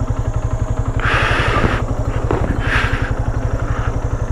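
Motorcycle engine idling with an even, rapid low beat, with a few short hissing or scuffing noises over it.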